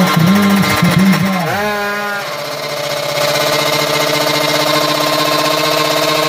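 Two-stroke drag bike engine, 155 cc open class, revving in a few quick throttle blips, then the revs fall away about a second and a half in and it settles into a steady fast idle, getting louder about three seconds in.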